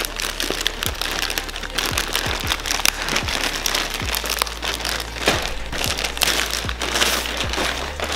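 Plastic poly mailer bag crinkling and rustling, with irregular crackles, as it is gripped and pulled open by hand, over background music with a low beat.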